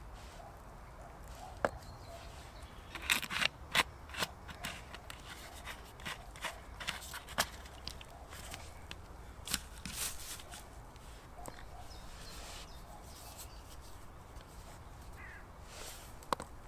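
Irregular clicks and light knocks of hands handling a plastic fuel bottle and a metal tin: the bottle's cap being screwed shut and the tin being moved about on a brick. The clicks come thickest a few seconds in, then thin out.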